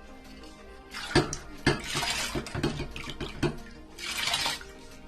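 A cooking pot and utensils clattering with a series of sharp knocks and splashing water, starting about a second in; a short rush of water-like hiss follows near the end.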